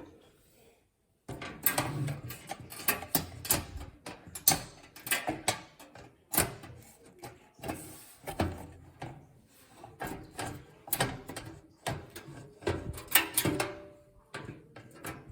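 A motherboard being lowered into a PC case and worked into place against the I/O shield and standoffs: irregular clicks, knocks and scraping of metal and plastic, starting about a second in.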